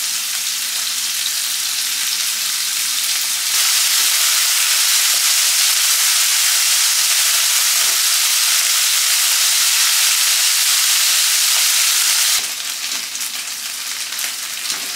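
Thinly sliced cornstarch-coated beef sizzling in hot oil in a nonstick frying pan while being stirred with a spatula. The sizzle gets louder about three and a half seconds in and drops back near the end, turning more crackly.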